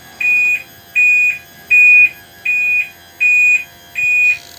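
Electronic warning beeper on a boat's powered hood lift, beeping evenly at a little over one beep a second while the engine hood rises, with a steady whine underneath that fades out near the end.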